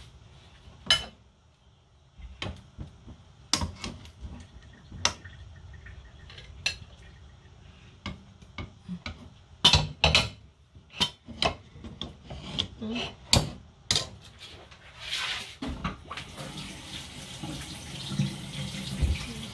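Metal utensils clanking and scraping against pots and pans on the stove, a sharp knock every second or so. About sixteen seconds in a kitchen tap is turned on and runs steadily.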